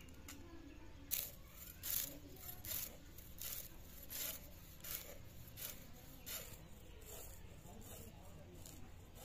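A long silver sea fish being scaled on a bonti, the upright curved blade on a floor stand: its skin is drawn against the edge in a steady series of scrapes, about one every three-quarters of a second, starting about a second in.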